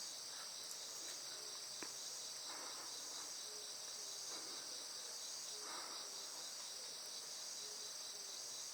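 A faint, steady chorus of insects chirring, a continuous high-pitched hum with a slight regular pulse.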